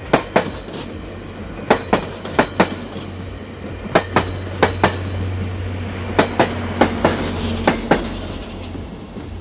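Wheels of a passing passenger train clacking over rail joints in quick pairs, eight pairs in all, over a steady low drone from the diesel locomotive at the rear, which is strongest as the locomotive goes by in the middle.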